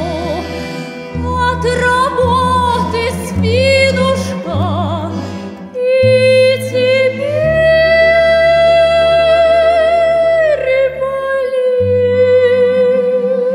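A woman singing a slow Russian folk song in a trained, operatic voice with wide vibrato, holding one long note about halfway through, accompanied by an orchestra of Russian folk instruments with sustained low bass notes underneath.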